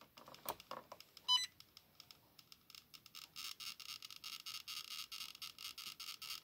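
TriField TF2 EMF meter's built-in speaker crackling with rapid clicks that grow denser from about three seconds in, as the meter picks up the drone transmitter's radio signal. A single click and a short beep come about a second in.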